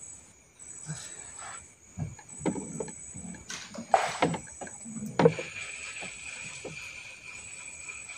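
Wooden boat knocking and clattering as an angler stands and grabs a rod, with sharp knocks about 2 to 5 seconds in, the loudest two near the middle. Under it, night insects keep up a steady high-pitched chirring.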